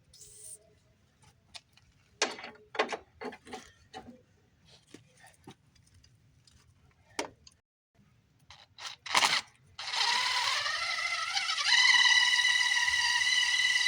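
Scattered clicks and knocks, then about ten seconds in an electric drill starts up. Its whine climbs briefly, then runs steady as it drills into a broken exhaust manifold stud to get it out.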